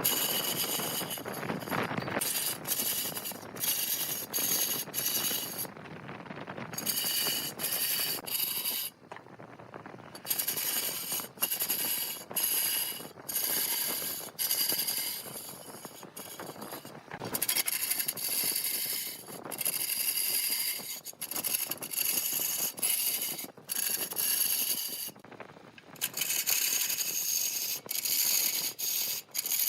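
Turning tool cutting into wood spinning on a large wood lathe, in repeated short passes that stop and start, with a high-pitched ringing whine during each cut.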